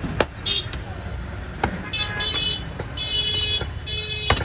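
Busy street traffic with a steady rumble and vehicle horns tooting several times, short and high-pitched. Three sharp knocks cut through it, the loudest near the end.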